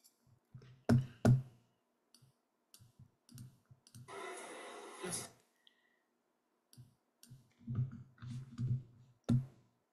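Scattered computer mouse and keyboard clicks and light taps, two sharper clicks about a second in and a cluster of soft taps near the end. A short hiss lasting about a second comes around four seconds in.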